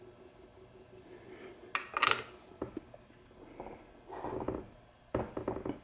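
Metal hand tool clinks as a backup light switch is threaded into a T5 transmission case and tightened with a wrench: a few short clicks and rubs, the loudest a sharp clink about two seconds in.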